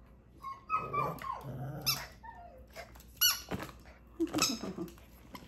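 A rubber squeaky dog toy squeaking several times as dogs bite and tug at it, mixed with short dog vocal sounds.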